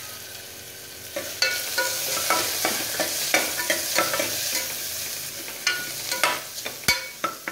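A spoon stirring onion-tomato masala in an aluminium pressure cooker, clinking and scraping against the pot with short metallic rings, over the sizzle of spices frying in oil. The stirring starts about a second in and comes in quick strokes.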